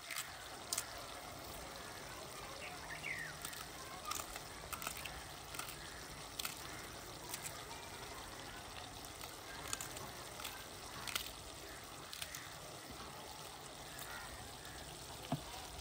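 Chicken karahi frying in an open karahi after its liquid has cooked off, the bhunai stage: a steady low sizzle with scattered crackles and pops.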